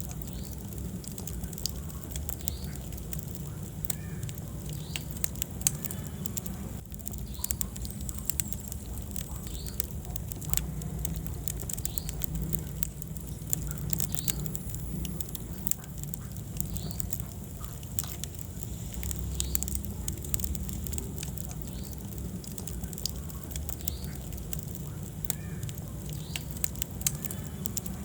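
Wood fire burning in a fireplace: a steady low rumble of flames with frequent sharp crackles and pops from the burning logs, a few of them louder.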